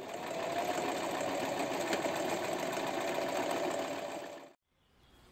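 Sewing machine stitching at a steady, fast rate, stopping about four and a half seconds in.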